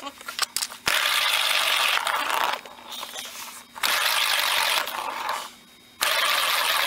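A ball rolling fast around the plastic track of a cat scratcher toy, batted by a kitten: a rushing rattle that comes in three spells of a second or two, with a few light clicks before the first.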